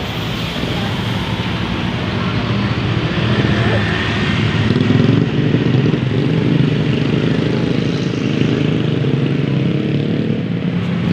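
Road traffic passing close by: a vehicle engine's low hum builds to its loudest about five seconds in and stays strong, with no horn tune.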